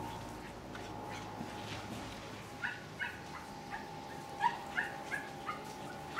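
Staffordshire bull terrier barking in a run of short, high-pitched yips, about two or three a second, starting a few seconds in.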